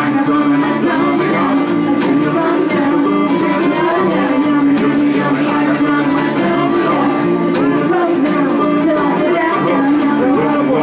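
Live folk band playing and singing: voices over strummed acoustic guitar and fiddle.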